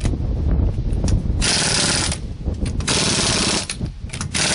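Impact wrench on its lowest torque setting hammering wheel lug nuts tight, in repeated bursts of under a second each.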